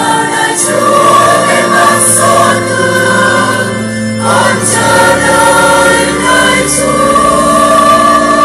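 A choir singing a Catholic funeral hymn in Vietnamese, in long held notes.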